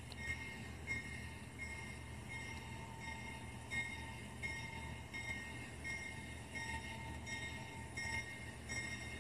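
Railroad grade-crossing bell dinging steadily, about three strokes every two seconds, over a low rumble from the approaching train.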